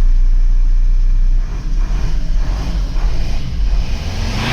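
Volvo V70 2.4D five-cylinder diesel engine running just after a start and being revved up and down. It is running smoothly with no sign of the misfire at this moment.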